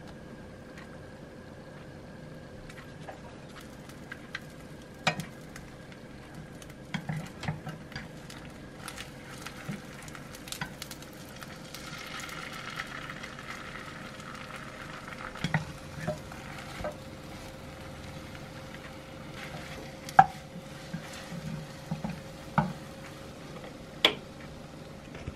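Beaten egg frying in a nonstick pan for a rolled omelette: a low sizzle with scattered light knocks and scrapes against the pan. About twelve seconds in the sizzle grows louder for a few seconds as more beaten egg is poured into the hot pan.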